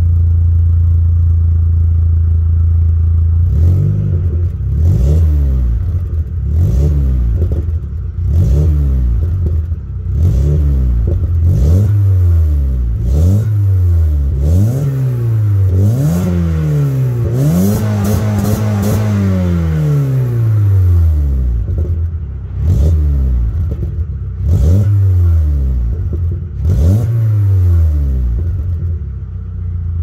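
Audi A3 8L four-cylinder petrol engine breathing through a Novus sport exhaust with twin tailpipes, idling and then blipped again and again. About a dozen quick revs rise and fall, with one longer rev held high in the middle, before it drops back to idle near the end.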